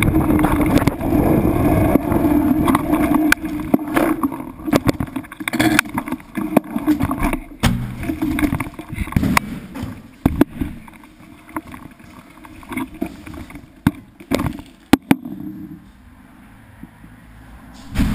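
Wind buffeting the microphone over a steady hum for the first few seconds, then a run of irregular knocks and clatters on a small boat, thinning out and getting quieter toward the end.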